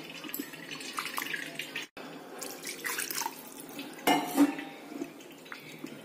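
Water splashing and dripping over freshly curdled paneer curds held in a cotton cloth as they are rinsed to wash out the lemon juice, with louder splashes about four seconds in.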